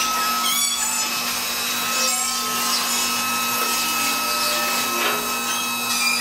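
Two-post car lift's electric hydraulic pump motor running steadily as it raises the car, a constant motor whine with a steady hum beneath it.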